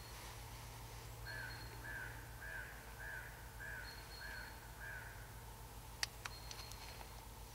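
A crow cawing, a run of about seven caws at roughly two a second, then two sharp clicks about six seconds in.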